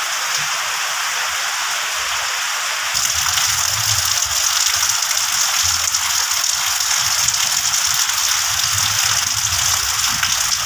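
Heavy rain falling steadily on garden foliage and wet ground, an even hiss that grows louder about three seconds in.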